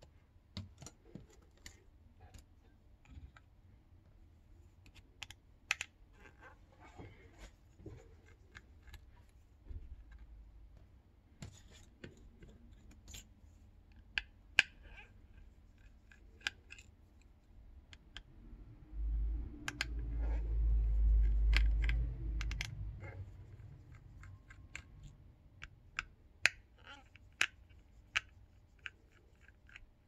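Small clicks and taps of tools and fingers on a smartphone's plastic frame and internal parts as it is taken apart, scattered and irregular. For about four seconds past the middle there is a louder low rumble.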